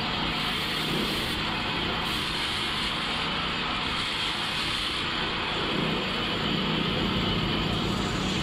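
Homemade stone-dressing machine running: a gang of many cutting discs on one motor-driven shaft, like a multi-blade wall chaser, grinding grooves into a stone block under a water spray. A steady grinding noise with a low motor hum beneath.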